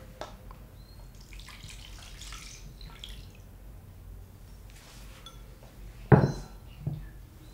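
Strained lemon juice poured from a ceramic bowl into a plastic jug, splashing for about two seconds and then dripping. About six seconds in, the bowl is set down on a wooden board with a sharp knock, and a lighter knock follows.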